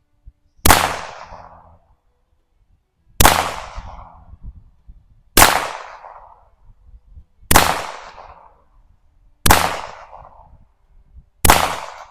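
1948 Colt Woodsman .22 LR semi-automatic pistol fired six times in slow succession, about two seconds between shots, each crack trailing off in a short echo.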